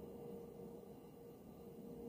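Near silence: a faint steady hum of room tone with one low, even tone in it.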